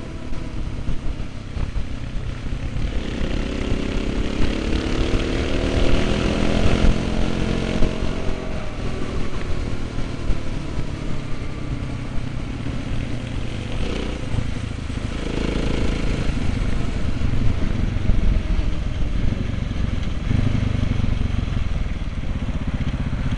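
KTM 690 Enduro's single-cylinder engine running under way. The engine note climbs as it accelerates from about three to eight seconds in, then drops off, and it changes pitch again with throttle later.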